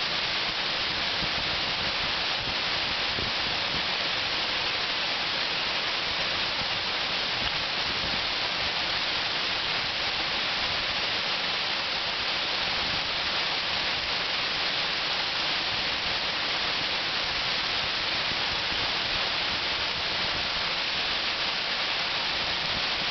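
Small manmade waterfall: a curtain of water spilling over a dam wall and splashing into the pool below, a steady, even rush of falling water.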